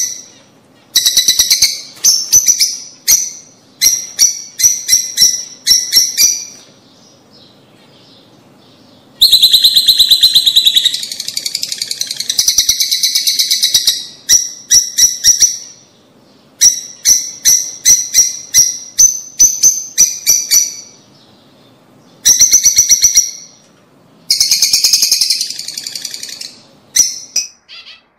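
Lovebirds chirping in rapid bursts of sharp, high chirps, with short pauses between bursts and a longer, denser stretch of chatter near the middle.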